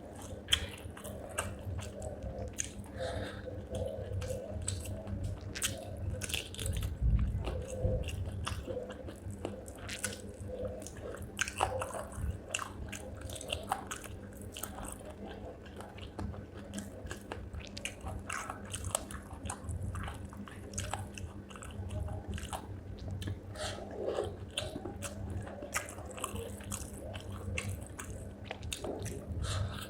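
A person eating spicy chicken feet with rice close to the microphone: steady chewing and biting, with many short, irregular crunches and clicks.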